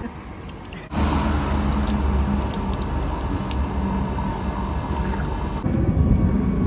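Water running from the tap of a street-side drinking-water cooler into cupped hands, under low wind rumble on the microphone. A little before the end the sound changes to general outdoor street noise.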